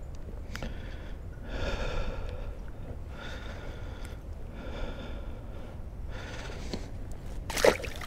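A person breathing audibly, five breaths about every second and a half, then one sharp knock near the end.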